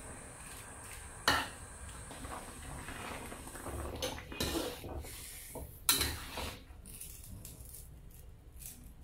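A spatula knocking and scraping against a wok as napa cabbage leaves are turned in boiling water: two sharp clanks, about a second in and near six seconds, with softer knocks and stirring between.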